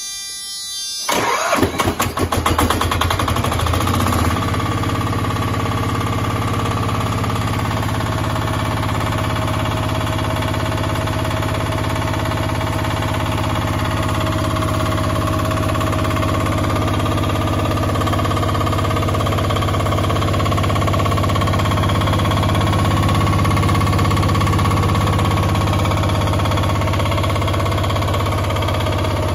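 Yanmar NFAD7-L single-cylinder diesel engine starting: it fires about a second in, runs rough and fast for a few seconds, then settles into a steady idle.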